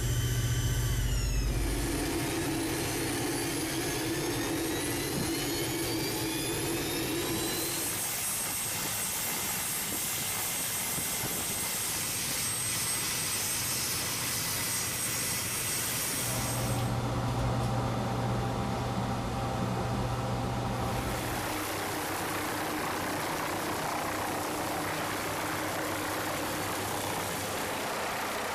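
MQ-8 Fire Scout unmanned helicopter's turboshaft engine and rotors running: a steady turbine whine over rotor noise, rising in pitch for a few seconds near the start. The sound changes abruptly several times as the shots change.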